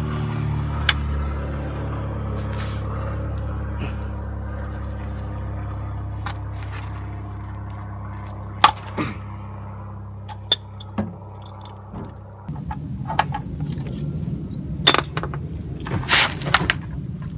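Ratchet and hand work on a VW T4's sump drain plug, with scattered sharp clicks and knocks over a steady low hum, then about twelve seconds in a rough rushing noise as the used engine oil starts pouring out of the sump into the drain pan.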